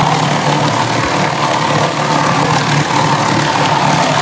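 Meatball production machine running steadily, a constant mechanical drone as meat paste is fed into its hopper.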